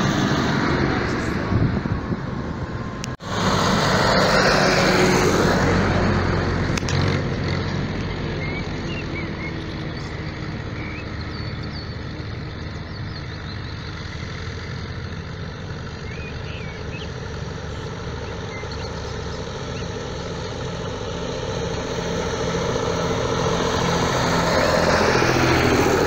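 Cars passing close on a narrow lane, then the diesel engines of a column of tractors approaching, growing louder near the end as the lead tractor nears.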